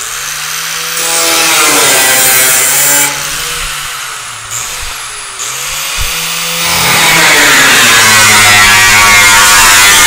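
DeWalt angle grinder with a cut-off wheel running and cutting into the sheet-steel door top of a car body. Its whine dips in pitch a couple of times in the middle as the wheel bites, then it cuts steadily and louder from about seven seconds in.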